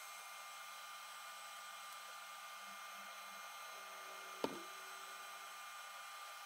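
Faint steady whirring hiss of running fans with a constant low hum and a thin steady tone, and one sharp click about four and a half seconds in.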